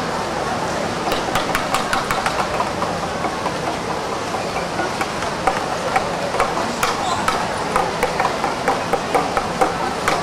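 Indoor swimming-pool hall during a freestyle race: a steady wash of crowd and water noise, with many scattered sharp snaps that come more often from about a second in.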